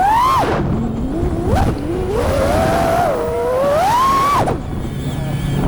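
FPV racing quadcopter's brushless motors and propellers whining, the pitch rising and falling with the throttle. The throttle is chopped twice, about half a second in and again near the end, the whine dropping sharply each time before it spools back up.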